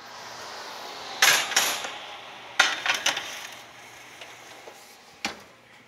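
Roasting pan slid onto a wire oven rack: a scraping rush about a second in, then a sharp clank with a little rattling after it, and one short click near the end, over a steady rushing noise.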